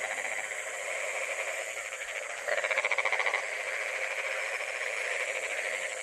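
Chorus of frogs calling, a dense, rapid pulsing trill that keeps on steadily, with a louder bout about two and a half seconds in lasting about a second.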